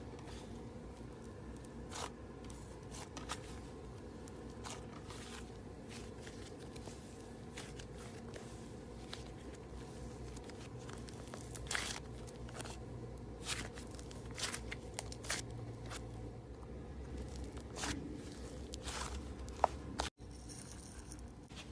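Slime being squeezed and poked by hand, giving scattered crackling and popping clicks over a low steady hum.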